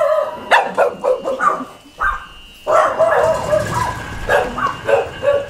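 Dogs barking at close range, a string of short barks and yaps coming in loose clusters.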